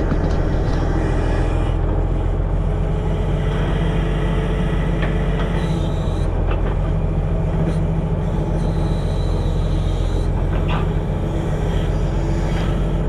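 Heavy diesel logging machinery running steadily under load, with a few short knocks and two brief high squeals.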